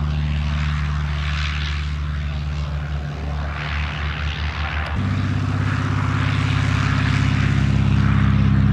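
Light aircraft piston engine and propeller running at low, steady power. About five seconds in, the sound suddenly gets louder and a little higher in pitch.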